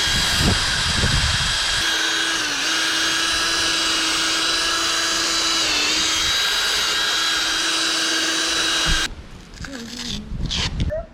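Power drill running steadily with a sanding/polishing pad on a plastic headlight lens, its pitch sagging briefly twice as it is pressed in, then stopping about nine seconds in.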